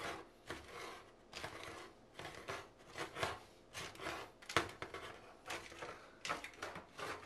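Handheld manual can opener cutting around the lid of a tin can, a short crunching click with each twist of the key, about two a second.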